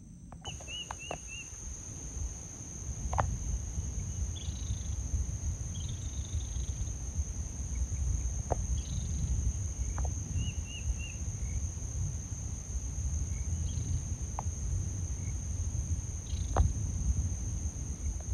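Outdoor ambience: insects droning steadily at a high pitch over a low wind rumble, with a few short bird chirps and scattered sharp clicks, the loudest near the end.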